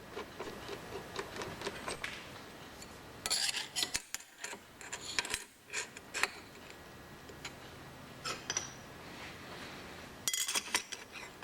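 Small steel parts and clamping hardware clinking and clattering as they are handled and set down during a milling-machine setup. The clinks come in scattered ticks with three busier bursts, about three and a half, five and ten seconds in.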